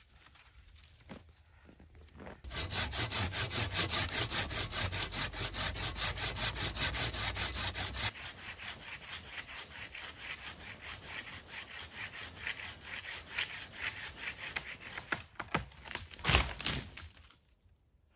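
Hand saw cutting through a wooden branch in quick, even back-and-forth strokes. It starts about two and a half seconds in, is loud for several seconds, then goes on more quietly, with a knock shortly before the sawing stops near the end.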